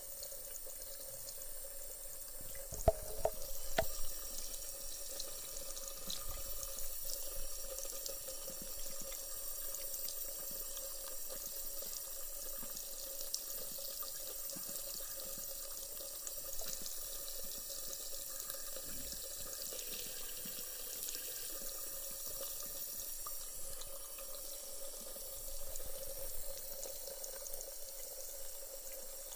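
A thin stream of tap water running steadily into a ceramic bathroom sink. A few sharp clicks come about three seconds in.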